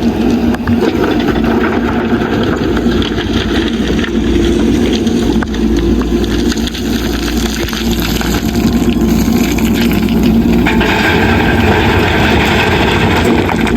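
Backhoe loader's diesel engine running steadily under load. A harsher, grittier noise joins about eleven seconds in.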